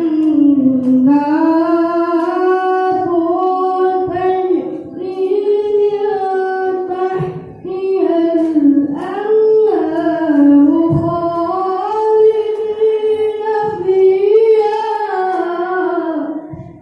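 A boy reciting the Quran in the melodic tilawah style: one voice drawing out long, ornamented phrases that rise and fall in pitch, with a short pause for breath about seven seconds in, stopping near the end.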